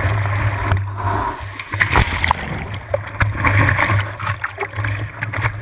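Whitewater rushing and splashing around a surfboard as it rides a broken wave, close to a camera fixed on the board's nose, with frequent sharp slaps of water and a steady low rumble.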